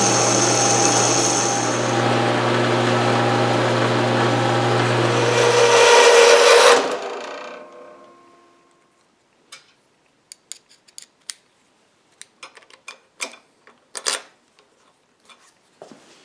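Electric motor of a metalworking machine running with a steady hum while cutting steel. It gets louder and harsher about six seconds in, then shuts off and coasts down over the next two seconds. After that there are only scattered light clicks and knocks of metal parts being handled.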